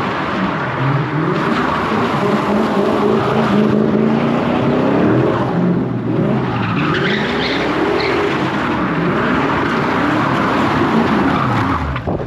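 A car doing donuts: its engine revving up and falling back over and over while the spinning rear tires squeal and screech on the pavement.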